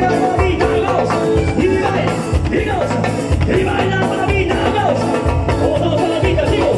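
A live Latin band playing: a male singer over electric guitar, bass, timbales and drums, with a metal güiro scraping the rhythm.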